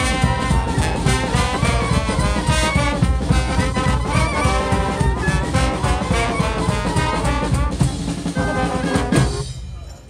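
Street brass band of trombones, saxophones and sousaphone, with drums, playing a loud, busy tune to a steady beat. The band stops together a little after nine seconds in, ending the piece.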